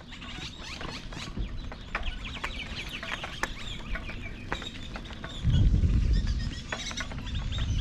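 Birds calling: a rapid run of short chirps and clucks. A low rumble joins about five and a half seconds in.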